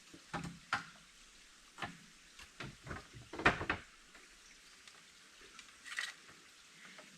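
Irregular light knocks, clicks and scrapes of things being handled, with a louder cluster of knocks about three and a half seconds in.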